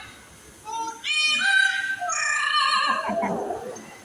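A talking bird singing in a shrill, human-like voice, mimicking a song in short held phrases with brief pauses between them.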